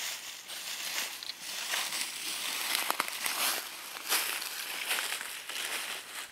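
Footsteps crunching through dry fallen leaves, an irregular run of crunches as people walk over the leaf litter.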